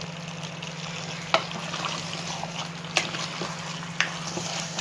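Three sharp clinks of a kitchen utensil, the last two a second apart, over a steady low hiss and hum.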